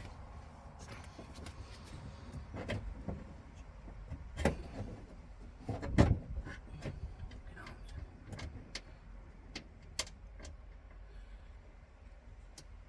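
Scattered clicks and knocks of tools and parts being handled while a car door's inner panel and lock parts are put back together, the loudest knock about six seconds in.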